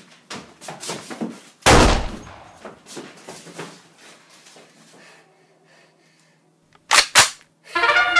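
A run of bangs and thumps in a small room, the loudest about two seconds in, then two sharp bangs in quick succession near the end. A trumpet tune starts just after them.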